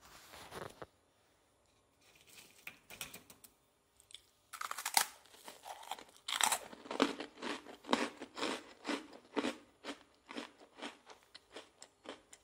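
Someone biting into and chewing crisp microwave-dried bread-crust rusks: a steady run of sharp crunches, about two to three a second, starting about four and a half seconds in.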